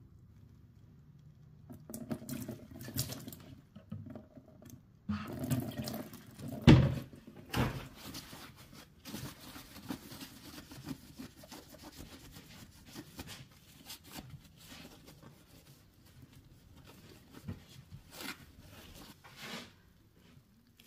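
Handling noises at a kitchen sink as a soldered stained glass piece is cleaned: a couple of sharp knocks near the middle, then a paper towel rubbing and wiping over the glass and solder lines.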